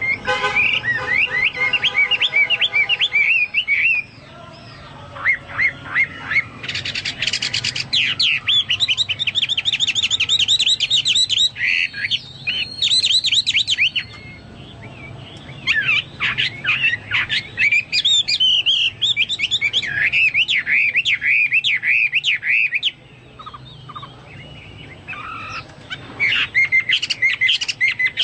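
Chinese hwamei singing a loud, varied song of fast, repeated whistled phrases, with a few short pauses.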